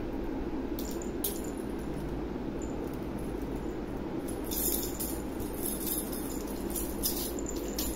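Small bells jingling in short bursts as a cat bats at and bites a feather wand toy, a couple of quick shakes early and a longer run of jingling in the second half. A steady low hum lies underneath.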